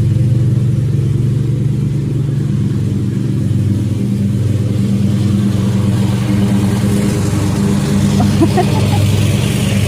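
Gas lawn mower engine running steadily and loudly close by. A higher hiss joins in over the last few seconds.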